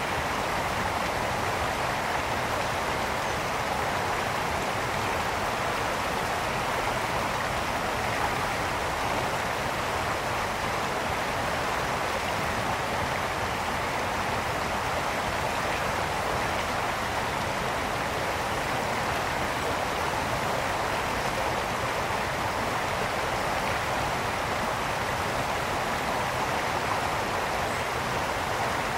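Mountain brook flowing and splashing over stones, a steady rushing without break.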